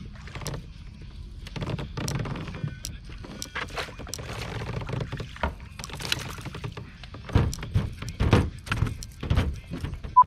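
Knocks, clicks and thumps of fishing gear being handled in a plastic fishing kayak, over a low steady rumble, with heavier thumps in the second half. A short beep right at the end.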